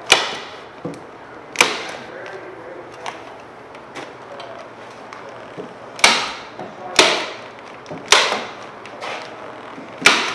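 Staple gun firing staples through a vapor-barrier sheet into the wall studs: about six sharp, loud shots at uneven intervals, with fainter ticks and handling between them.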